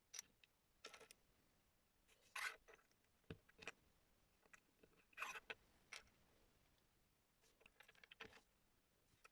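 Faint, scattered clicks and short rustles of small plastic Lego pieces being handled and pressed together.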